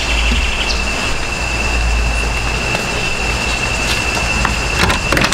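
Insects buzzing loudly and steadily on one high, even tone, over a low rumble on the microphone. A few sharp clicks near the end.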